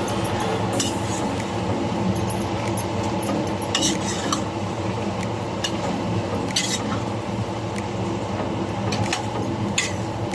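A cooking utensil stirring and scraping in a pan of potato and greens, with a few sharp clinks against the pan at irregular intervals.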